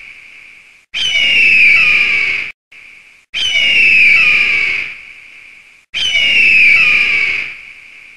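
Eagle screaming: three long, harsh, piercing calls, each sliding down in pitch and lasting about a second and a half, with a short call between the first two.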